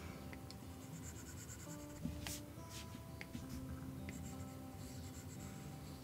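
Apple Pencil tip rubbing across an iPad's glass screen in slow blending strokes, with a few light tip taps.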